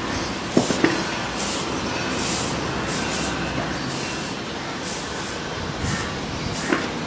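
Push brooms sweeping across paving, a scratchy swish with each stroke, over a steady rumbling background. A few sharp clicks come about half a second in and again near the end.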